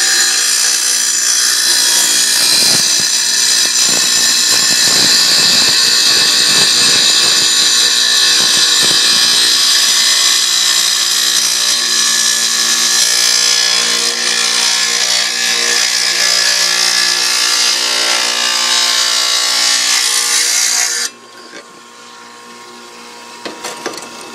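Small wet tile saw's diamond blade grinding through a glass bottle: a loud, steady, high-pitched grinding hiss over the motor's whine. Near the end the grinding drops away suddenly, leaving the saw's quieter steady hum.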